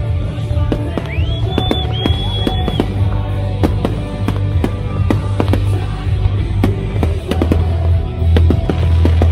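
Fireworks display going off in rapid, repeated bangs and crackles over loud music with a heavy bass.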